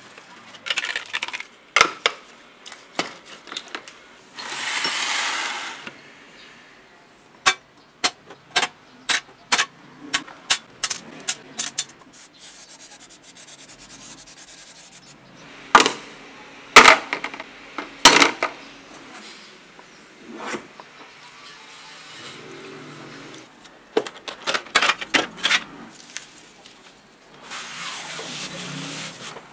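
Hand scrubbing of jig saw parts with a brush, with pauses between, broken by runs of sharp clicks and a few louder knocks as small metal parts are handled and set down. The scrubbing comes back near the end.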